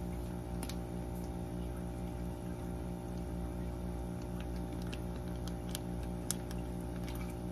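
Steady mechanical hum with a faint regular pulsing, and a few light clicks scattered through it.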